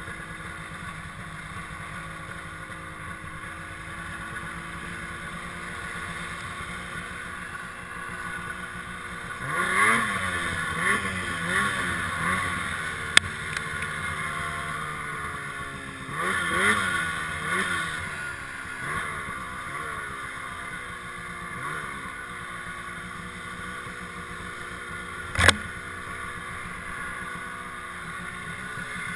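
Snowmobile engine running at low revs, revving up and down in wavering swells about ten seconds in and again around seventeen seconds. A sharp knock sounds about twenty-five seconds in.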